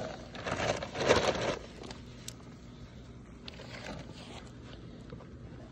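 Belgian Shepherd puppies eating kibble off the grass: rustling, scraping and crunching, loudest in the first second and a half, then quieter with scattered small clicks.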